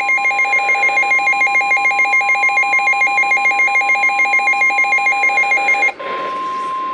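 NOAA Weather Radio's steady 1050 Hz warning alarm tone, the signal that a warning message follows. A rapid pulsing beep sounds over it and stops about six seconds in, leaving the single tone alone over radio hiss.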